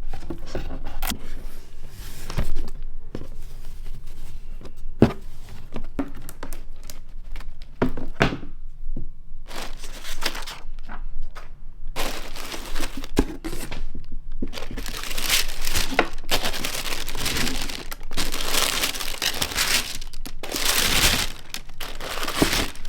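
A parcel being unboxed by hand: packaging tearing and paper or plastic crinkling, with scattered knocks and thuds as the box is handled. The crinkling grows dense and continuous for the last several seconds.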